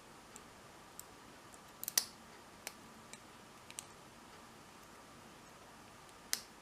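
Small, sharp clicks of a short hook pick and tension wrench working the pin stack of a 5-pin padlock, coming irregularly, with the loudest cluster about two seconds in and one more near the end.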